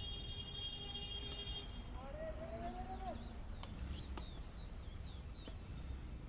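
Badminton rackets striking a shuttlecock during a doubles rally: a few sharp hits over a steady low rumble of outdoor noise.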